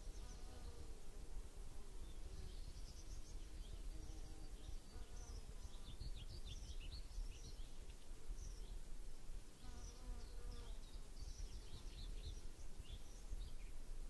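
A flying insect buzzing close by, the buzz swelling and fading several times, with short high chirps scattered around it.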